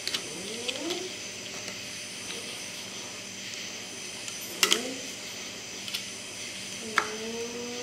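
Metal clicks of a small screwdriver and a large steel snap ring as the ring is pried into its groove in a Dana 60 front hub: a pair of sharp clicks a little before five seconds in and another near seven seconds, over a steady hiss.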